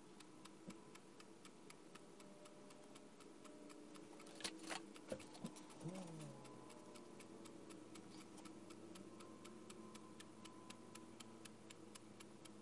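Wall clock ticking fast and evenly, about four ticks a second, as in a sped-up recording. A few brief louder sounds break in about four to six seconds in, one of them falling in pitch.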